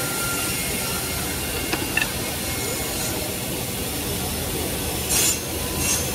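Woodmaster WMS-300 sliding table saw running as a wooden board is fed on the sliding table through its spinning blade: a steady cutting noise, a few light clicks about two seconds in, and two short, louder bursts of hiss near the end.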